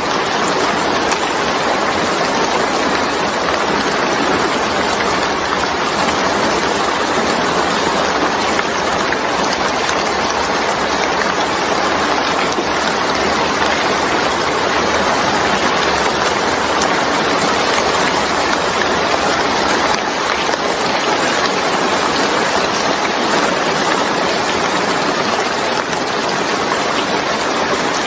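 Steady heavy rain, an even rushing hiss of falling water without distinct drops or other sounds.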